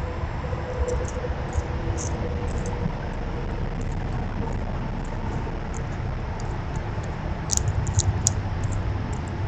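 Steady low outdoor rumble with scattered faint high ticks. About seven and a half seconds in comes a quick run of sharp clicks close to the microphone from a squirrel moving right at the camera.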